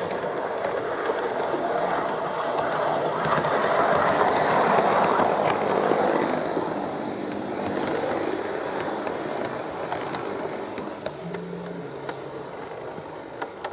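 Garden-scale model train, a Kent Link Networker multiple unit, running past on the rails. The running noise of its wheels and motor grows louder to a peak about five seconds in, then fades as it moves away.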